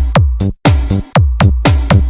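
Bass-heavy electronic dance remix of the kind played as a sound-system sound check: booming kick drums that drop quickly in pitch, about four a second, with a brief break about half a second in.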